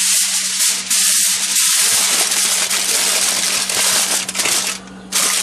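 Aluminium foil crinkling and rustling as a sheet is pressed and wrapped over by hand, with a brief pause near the end.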